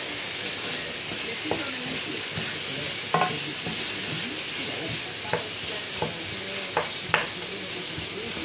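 Chopped vegetables sizzling in oil in a metal pot while a spoon stirs them, the spoon knocking against the pot several times.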